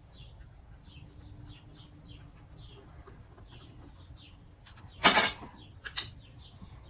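Small birds chirping faintly and repeatedly in the background. About five seconds in comes a sharp clack, with lighter clicks just before it and about a second after, as parts or tools are handled on the bench.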